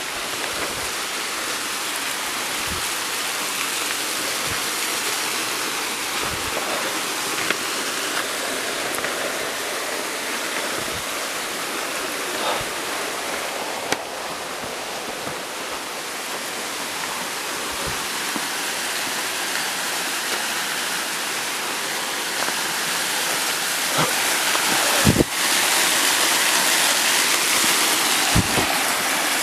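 Steady rushing of a waterfall's water, getting louder near the end, with a few soft low thumps now and then.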